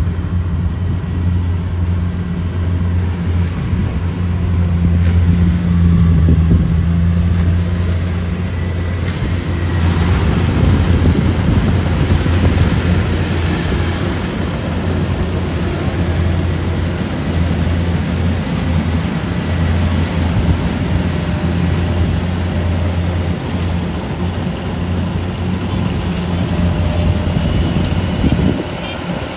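Kubota rice combine harvester's diesel engine running steadily, with a low hum that eases slightly near the end.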